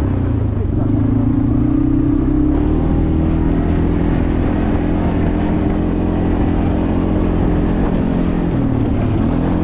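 ATV engine running steadily as the quad is driven, its note holding fairly even with small shifts in pitch.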